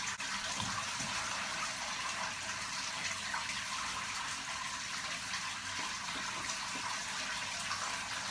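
Shower water running in a steady hiss of spray.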